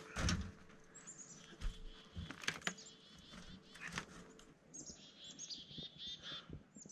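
Small birds chirping again and again in short, high calls, mixed with scattered knocks and thumps as someone climbs up onto a snow-covered camper roof. The loudest is a thump about a quarter second in.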